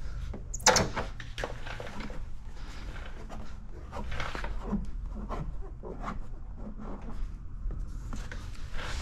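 Scattered light rubbing, clicks and knocks of a plastic squeegee being worked over paint protection film on a car bumper's edge, with one sharp knock near the start.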